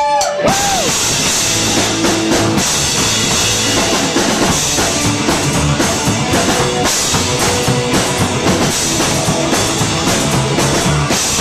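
Rock band playing a song's instrumental intro live, the drum kit driving it, loud and steady once the full band comes in about half a second in.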